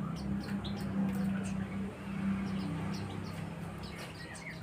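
White-eyes (pleci) chirping: short, high, repeated call notes, with a steady low hum underneath.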